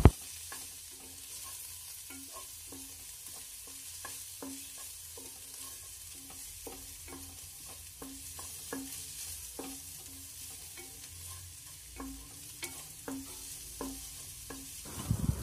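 Spatula stirring and scraping chopped onions frying in oil in a nonstick pan, about two strokes a second over a quiet, steady sizzle. The onions are being sautéed until soft.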